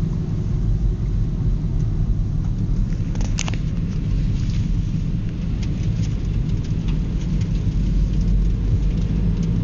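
Steady low rumble of a car driving along a road, heard from inside the cabin: engine and tyre noise, with a faint click about three and a half seconds in.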